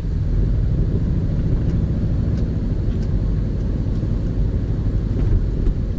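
Subaru Legacy BH5's flat-four boxer engine and road noise, a steady low rumble heard from inside the cabin while driving.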